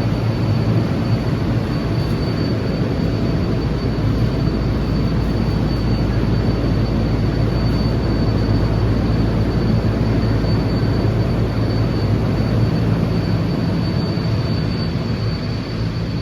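Refrigeration fans in a walk-in dairy cooler running steadily: a loud, even rushing hum with a thin, steady high tone above it.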